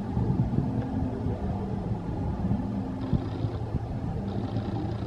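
Steady low rumble of a slow boat ride's boat moving along its water channel, with a few light knocks.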